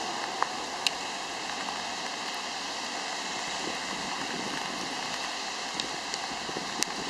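Steady hiss of rain and of car tyres passing over a wet road, with a few short sharp ticks.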